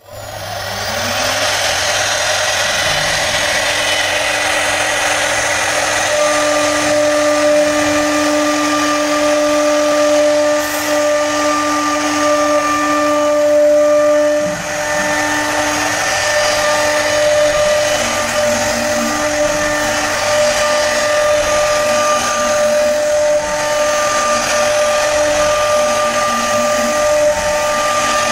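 Electric power-carving tool running continuously, its motor whining steadily over a rushing hiss, with the pitch dipping slightly now and then as it works into the wood.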